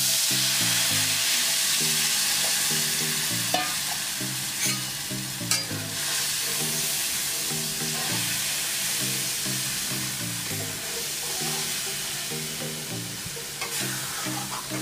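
Besan and curd batter poured into hot oil with cumin in a kadhai: a loud sizzle starts suddenly and slowly dies down as the batter is stirred, with a few spatula scrapes against the pan. Soft background music runs underneath.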